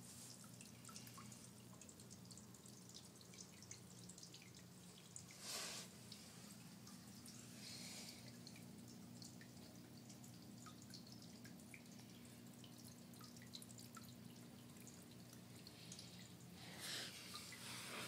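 Faint, scattered water drips inside a fogged rainforest terrarium over a low steady hum, with two brief hisses, one about five seconds in and one near the end.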